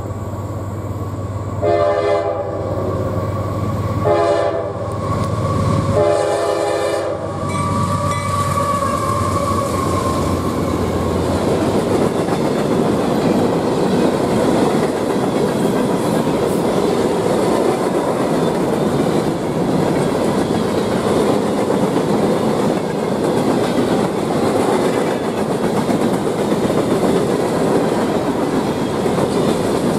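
A GE diesel locomotive's horn sounds three blasts in the first eight seconds over the low rumble of the diesels as the lead units pass. Then a train of empty coke hopper cars clatters steadily by over the rail joints and crossing.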